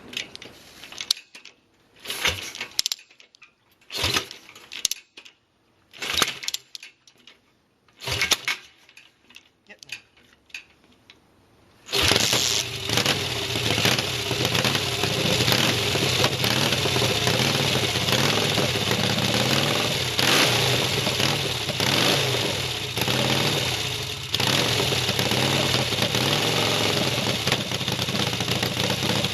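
Several short, separate noises with quiet gaps, then about twelve seconds in a motorcycle engine fires and settles into a steady idle.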